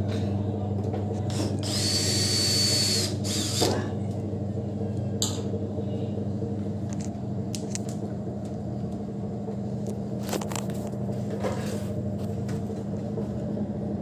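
Top-loading washing machine running normally with a steady motor hum. About two seconds in there is a hissing burst with a high whine lasting about a second, and a few light clicks follow.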